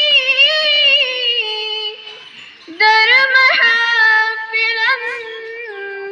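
A girl singing solo without accompaniment, holding long high notes that waver in pitch, with a short pause partway through before she goes on.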